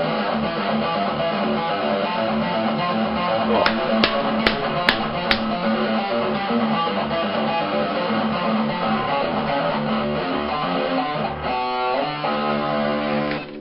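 Electric guitar played through a combo amp in a dense, fast run of notes, with five sharp picking clicks in quick succession about four seconds in. Near the end a quick burst of repeated picked notes gives way to held, ringing notes.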